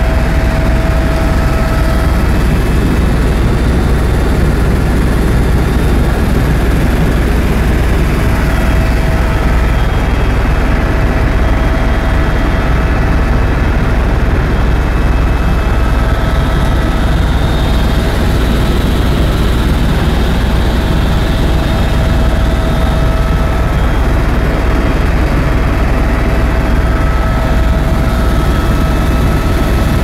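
Tour helicopter in cruise flight heard from inside the cabin: a loud, steady rotor and engine rumble with a faint steady whine above it.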